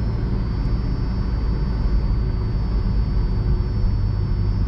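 A car's engine and tyre rumble heard from inside the cabin, steady while driving along in second gear.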